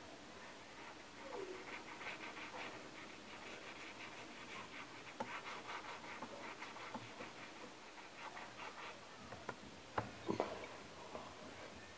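Colouring strokes on paper: a drawing tool rubbed quickly back and forth, a soft rhythmic scratching of about five strokes a second. A few light knocks about ten seconds in.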